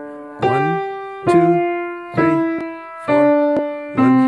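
Piano played slowly with both hands: five even strokes, about one a second, each a low note sounded with a higher note and left to ring and fade before the next.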